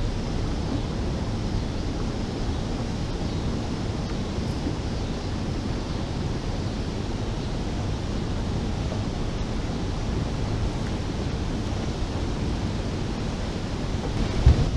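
Steady rushing of turbulent water pouring through a dam's spillway and churning below it, mixed with wind on the microphone. A few louder low bumps come near the end.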